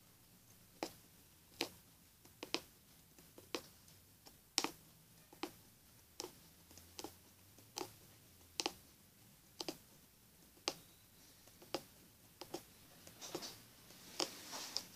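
Punch needle (aguja mágica) stabbing through fabric stretched taut in an embroidery hoop: a sharp tap with each stroke, about one a second, coming a little faster near the end.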